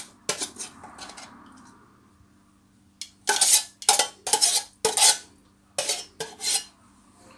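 A spoon scraping and knocking against a pan as the last of the fried lardons are spooned out over the dish: a couple of knocks at the start, then a run of about eight quick scrapes and knocks from about three seconds in.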